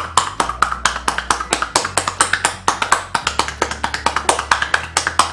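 Rapid, even tapping of a palm on a child's back, about seven pats a second. This is the percussion stroke of a drainage massage, used to loosen phlegm in bronchitis. Background music with low, steady bass notes plays underneath.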